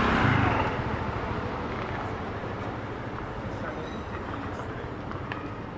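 Motor scooter passing close and fading away in the first half-second, followed by steady city street noise.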